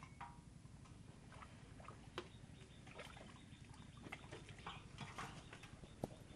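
Faint, scattered clicks and light water patters from hands working in a shallow metal tray of water, with a sharper click about two seconds in and another near the end.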